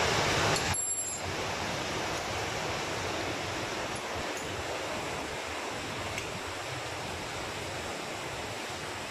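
A steady, even rushing hiss with no distinct events. It is louder for the first second, drops off suddenly, and then holds steady.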